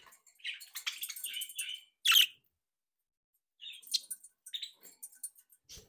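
Budgerigars chattering with quick high chirps, with one loud sharp call about two seconds in; after a short pause the chirps pick up again, and a brief knock sounds near the end.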